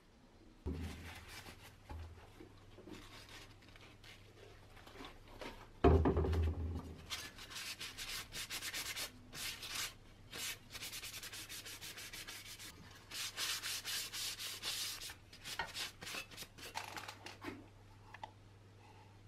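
Quick, scratchy rubbing strokes of a paper towel wiping down small pressed-steel toy truck parts, with one heavy thump about six seconds in.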